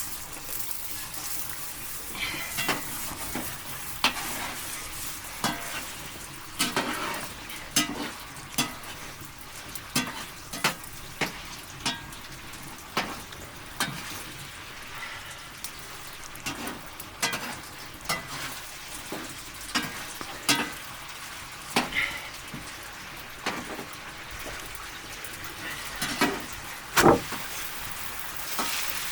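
Food sizzling as it fries in a pot, with sharp knocks and scrapes of a stirring utensil against the pot every half second to a second; the loudest knock comes near the end.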